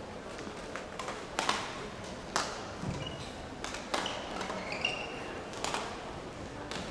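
Badminton rally: sharp racket-on-shuttlecock hits come about once a second, with short rubber-soled shoe squeaks on the court floor about halfway through.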